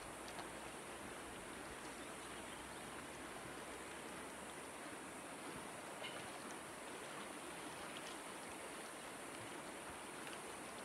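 Shallow, clear mountain river running over stones: a steady, even rush of water.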